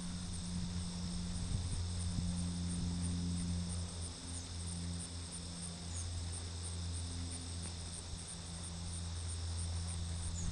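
Crickets chirping in a steady high trill, over a steady low hum.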